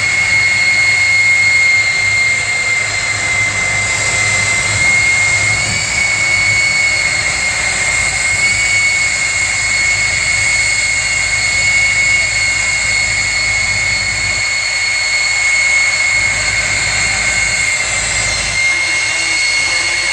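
Jet-powered semi truck's jet engine running steadily: a loud, high turbine whine that wavers slightly in pitch over a constant roar.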